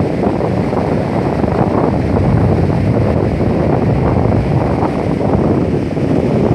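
Wind buffeting the microphone as a loud, steady low rumble, over the wash of surf breaking on a sandy beach.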